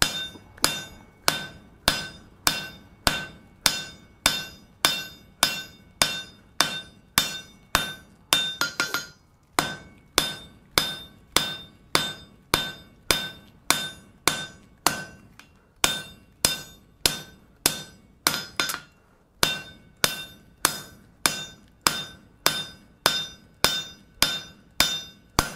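Hand hammer striking a hot steel bar on an anvil in a steady rhythm of about two blows a second, each blow ringing, with two short pauses. The smith is drawing the bar down to an even, flat taper.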